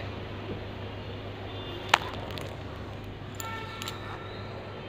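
Steady low room hum, with one sharp click about two seconds in and a few fainter ticks after it.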